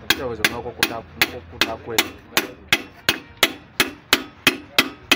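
A hammer striking in a steady, even rhythm of nearly three sharp blows a second, each with a short ring.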